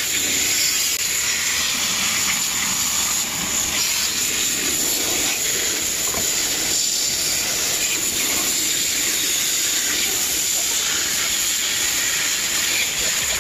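A jet of water from a hose nozzle spraying steadily onto an iced-up freezer evaporator coil, washing over the metal fins to melt off the built-up ice.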